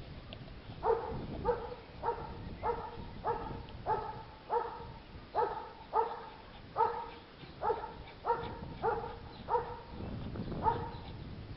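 Small dog barking over and over in short, high barks, about two a second, at a hedgehog curled into a spiny ball, with a brief pause about ten seconds in. Its paws scrape and throw loose soil as it digs at the hedgehog.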